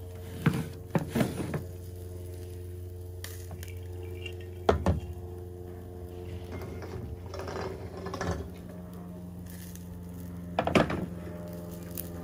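A few sharp knocks and clicks as a camping lantern is set down on a cardboard box. Several more clinks and knocks follow, like dishes or utensils being handled, over a steady low hum.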